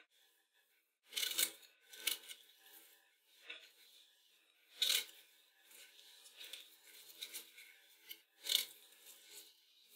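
Fresh strawberries being hulled with a small kitchen knife over a wooden cutting board: short crisp cutting and scraping sounds, the loudest three coming a few seconds apart, with lighter handling sounds between.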